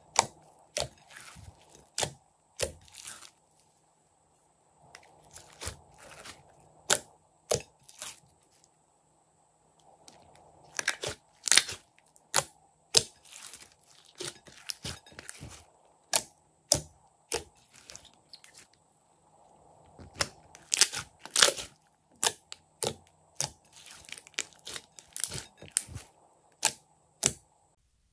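Pink glitter slime squeezed and kneaded by hand, giving bursts of sharp wet clicks and crackles in clusters with short pauses between them.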